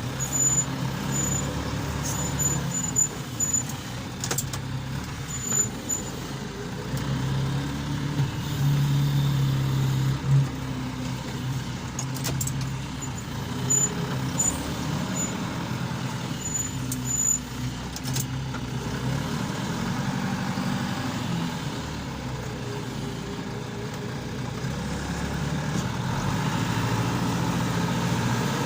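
John Deere tractor's diesel engine running steadily under load while pulling a plough, with a few sharp knocks along the way.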